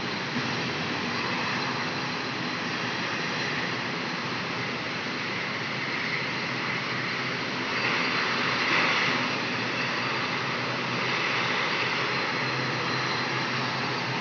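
Steady roar of aircraft jet engines across an airport apron, swelling for a few seconds about halfway through and then settling back.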